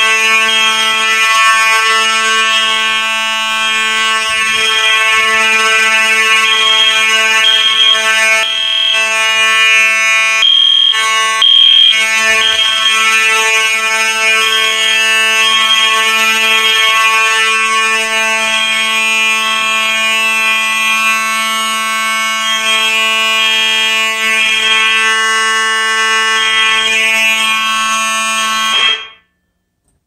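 Fire alarm horns sounding together in general alarm after a smoke detector was set off: a continuous buzzing horn tone with a second, pulsing tone layered over it, ridiculously loud. It cuts off suddenly about a second before the end.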